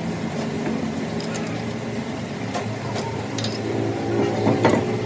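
A lathe's four-jaw chuck being adjusted with a chuck key: scattered metallic clicks and knocks of the key and jaws on the steel differential spider shaft, with a louder clatter near the end. A steady workshop machine hum runs underneath.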